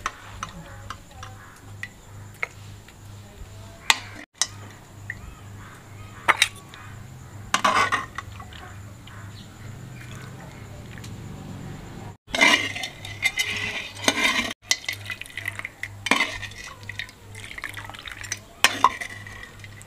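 A steel ladle scooping soup from a steel kadai and pouring it into steel bowls: scattered sharp metallic clinks of the ladle against the rims, with soup sloshing and pouring.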